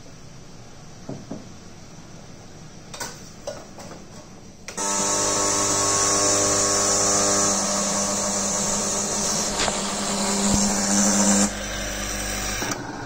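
Sage Barista Express espresso machine starting up suddenly, a steady pump hum with a strong hiss over it, after a few light clinks of crockery. The hum drops in level about seven seconds later and cuts off shortly before the end.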